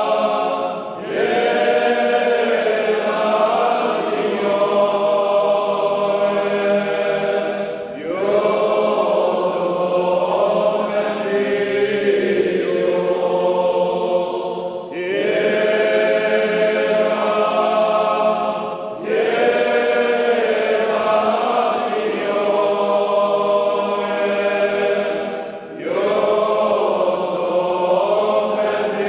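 Confraternity choir singing a Passion chant a cappella, in long held phrases broken by short breathing pauses every few seconds.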